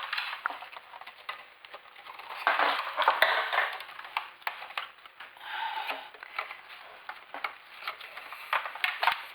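Irregular clicking, light clattering and rustling, with a busier stretch about two and a half to four seconds in.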